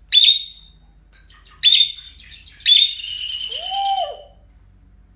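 Pet parrot calling: three sharp, shrill calls, the third drawn out for about a second and a half. A lower note rises and falls near its end.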